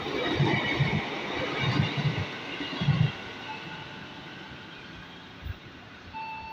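A JR 205-series electric commuter train (ex Nambu Line) runs out past the platform, its wheels clacking over the rail joints with faint high ringing tones. The clatter fades away after about three seconds.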